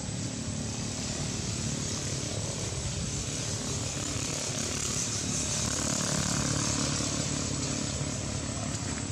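Steady low engine hum of motorbike traffic under a continuous high hiss, swelling slightly in level past the middle.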